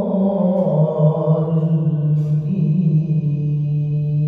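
An imam's voice reciting the Quran in melodic, drawn-out prayer chanting. One long held phrase steps down in pitch about a second in and is sustained through the rest.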